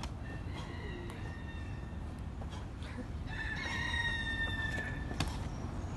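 Rooster crowing twice: a fainter crow in the first second, then a longer, louder one from about three to five seconds in. A few sharp smacks come through as well, the loudest just after the second crow.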